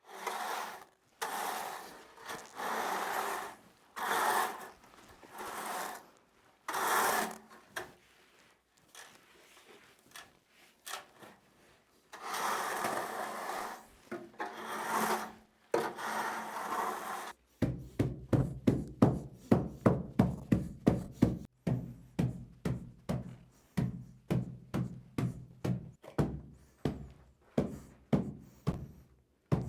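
Repeated scraping strokes of a tool over a rough surface, each about a second long with short pauses. From about halfway through, music with a steady beat of about two a second takes over.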